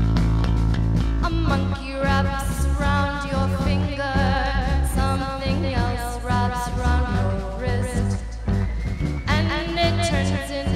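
Live rock band playing: electric bass, electric guitar and a drum kit, with a woman's voice beginning to sing about a second and a half in.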